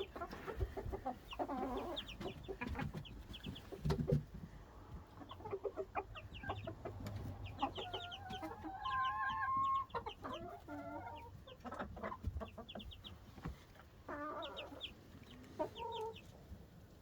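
Young chicks peeping in quick runs of short high chirps, mixed with chickens clucking. A chicken gives a longer drawn-out call about halfway through, and there are a few knocks.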